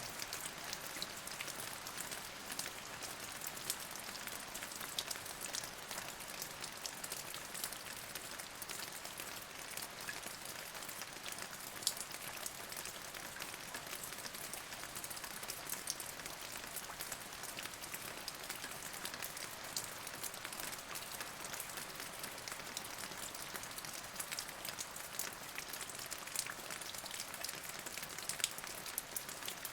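Steady rain falling, with many individual drops ticking sharply over an even hiss.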